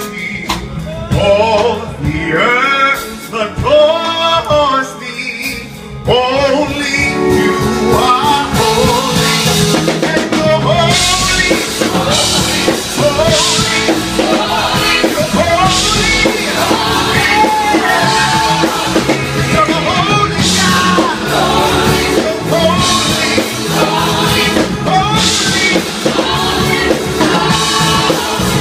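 Live gospel choir singing with a male lead, backed by keyboard, guitar and drum kit. For the first six seconds the voices carry over light accompaniment, then the full band comes in with drums.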